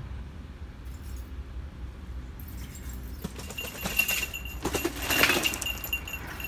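Gravel bike being ridden down a flight of stairs: a run of rattling knocks and clatter starts about halfway through and is loudest about five seconds in, with a high ringing tone alongside. A steady low rumble runs underneath.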